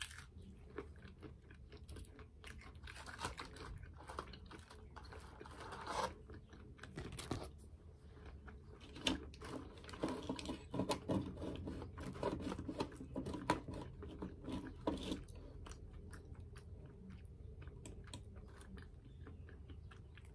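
A person chewing a breaded Wendy's spicy chicken nugget close to the microphone. Crisp crunches and mouth sounds come thickest in the first fifteen seconds, then taper off.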